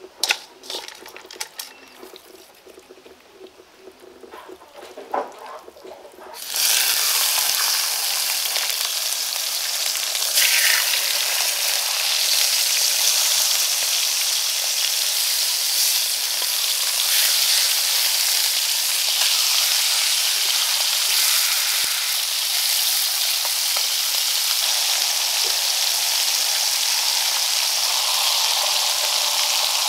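Skinned rat carcasses sizzling in hot oil in a frying pan. The steady frying hiss starts suddenly about six seconds in. Before that come a few soft wet clicks of raw meat being handled in a metal bowl.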